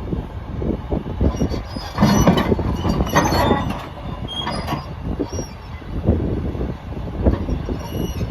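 Komatsu D65 crawler bulldozer moving on its steel tracks: the engine runs under an irregular clatter of track links, with short metallic squeals, most of them about two to three and a half seconds in.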